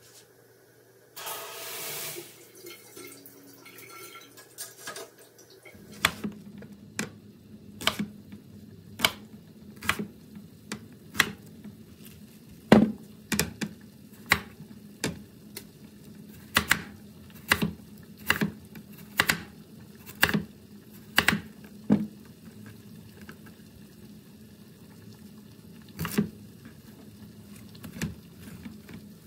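A brief spray of water from a handheld shower head about a second in. Then, from about six seconds in, a kitchen knife chopping vegetables on a wooden cutting board, striking the board about once a second, with a pause and a few more cuts near the end.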